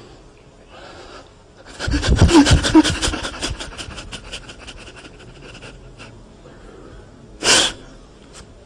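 A man weeping close to a microphone. About two seconds in comes a burst of convulsive sobbing gasps that shake in quick pulses, then it fades to quieter breathing, with one short, sharp intake of breath near the end.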